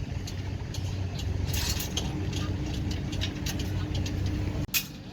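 Diesel engine of heavy earth-moving machinery running steadily, with repeated short metallic ticks over it; the engine sound drops off abruptly near the end.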